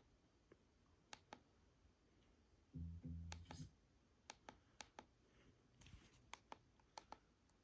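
Quiet room with a dozen or so scattered sharp clicks, like buttons or a mouse being worked, and a brief low hum lasting under a second about three seconds in.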